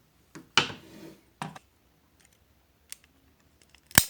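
A thin speaker wire being snipped, with handling of a small plastic toy: a handful of separate sharp clicks and snips. The sharpest and loudest comes near the end.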